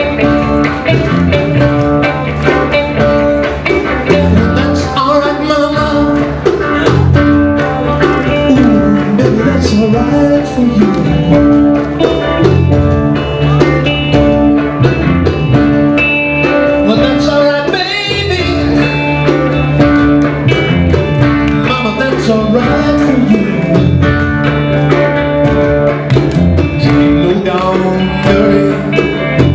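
Live band music from electric guitars, with a man singing at times, recorded from among the audience.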